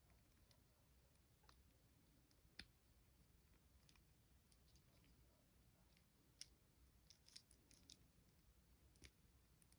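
Near silence broken by faint, scattered clicks of an action figure and its plastic packaging being handled, with a small cluster of clicks a little past the middle.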